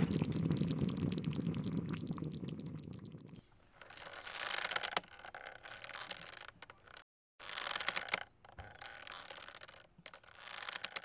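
Milk boiling over in a steel pot on a gas burner, bubbling and sizzling with a dense crackle. After about three seconds it drops to quieter bursts of crackle with short silences between them.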